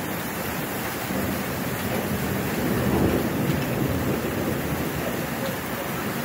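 Heavy rain pouring steadily, with a rolling rumble of thunder that swells to its loudest about halfway through and then fades back into the rain.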